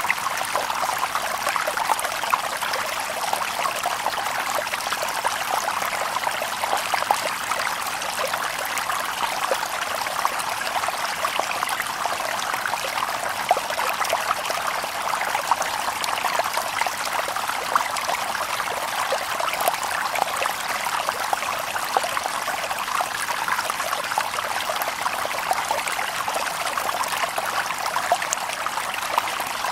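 Stream water babbling over stones: a steady rush of water full of small splashes and trickles, light and bright with no deep rumble.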